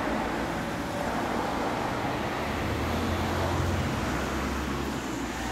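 Small motorcycle engine running steadily at low revs, with no revving.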